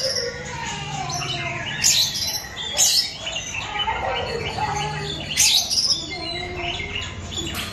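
Oriental magpie-robin (kacer) singing: a run of varied whistled phrases broken by three short, loud, sharp calls, about two, three and five and a half seconds in.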